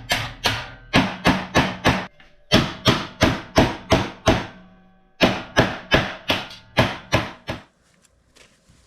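Hammer striking metal in quick repeated blows, about three a second, with a short ringing after each; the blows come in three runs and stop near the end.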